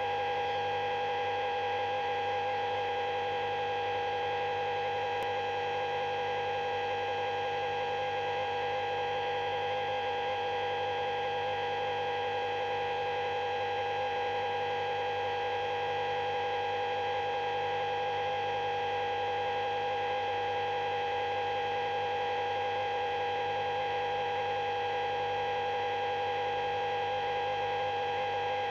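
A steady electronic drone of several held tones layered together, one middle-pitched tone the loudest, unchanging in pitch and level throughout.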